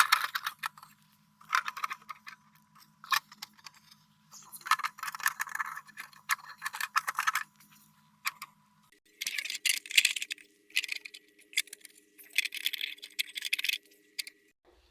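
Bursts of rattling and clicking from the plastic console trim and USB receptacle being handled and unplugged, with short pauses between them. Faint steady tones sit underneath and change pitch about nine seconds in.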